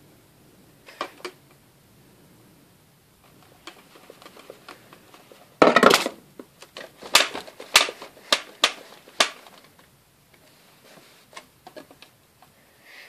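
Hands handling a top-loading CD player and a CD: a short loud clatter about six seconds in, then a run of sharp plastic clicks over the next few seconds as the lid is opened and the disc is set in the tray.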